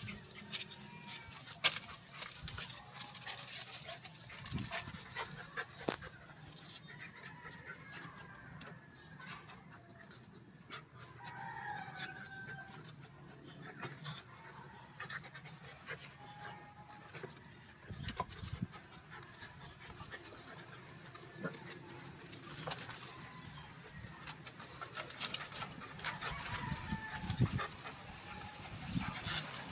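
Two dogs playfighting on a concrete lane: paws scuffling and scattered clicks and knocks as they tussle, busier near the end. Faint animal calls sound in the background.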